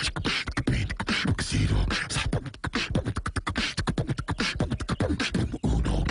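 A man beatboxing: a fast run of mouth-made kick thumps, clicks and hissy snare sounds.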